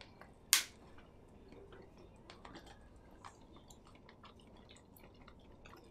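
Close, quiet chewing of a chicken meatball, with faint scattered mouth clicks. A short sharp hiss about half a second in is the loudest sound.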